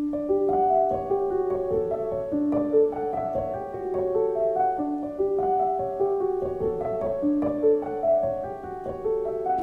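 Background music: a solo piano playing a melody of overlapping notes that step up and down in pitch.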